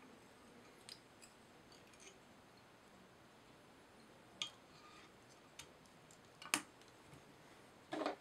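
Quiet handling sounds of a whip finish being tied in fly-tying thread at a fly's head: a few scattered small clicks and ticks, the sharpest about six and a half seconds in and a short rustle near the end.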